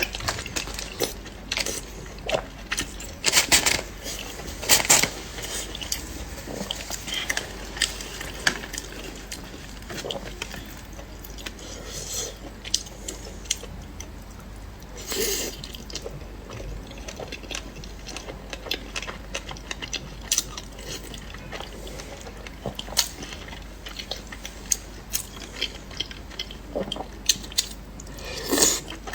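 A person biting and chewing crunchy food close to the microphone: irregular crisp crunches and smacks, a few of them much louder than the rest.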